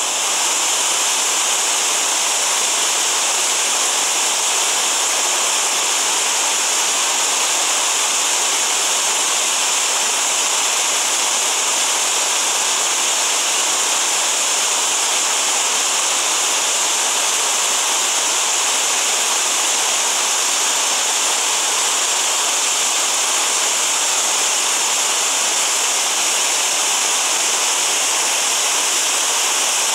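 Loud, steady rush of a mountain creek's whitewater cascading over boulders.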